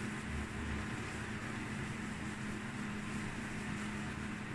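Steady background hum: an even hiss with a constant low drone underneath, unchanging throughout.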